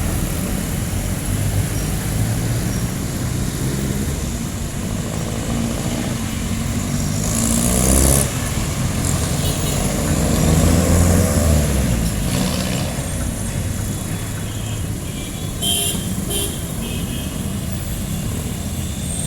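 Street traffic with jeepney and other vehicle engines running and passing, under a steady low rumble. Engine pitch rises and falls as vehicles go by between about seven and twelve seconds in, with a short high hiss near eight seconds and two brief ones near sixteen.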